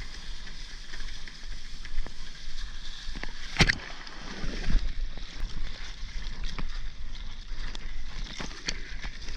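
Seawater splashing and sloshing around a soft-top foam surfboard as small broken waves wash over its nose, with one sharp, louder splash a little before halfway and smaller splashes throughout.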